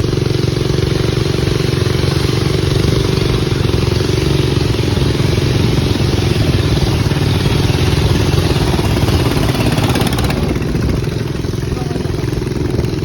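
Boat engine running steadily under way, with a steady rushing noise over it that comes up sharply at the start.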